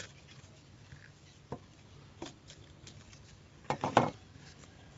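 Scattered light knocks and scrapes of a hand scooping chopped herbs and shallots off a wooden chopping board into a clay mortar, with a louder clatter of knocks about four seconds in.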